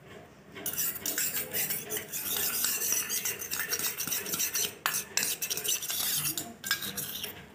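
Metal spoon stirring and scraping in a small stainless-steel bowl, mixing powdered hand-feeding formula with warm water into a paste. It makes rapid clinks and scrapes, starting about half a second in.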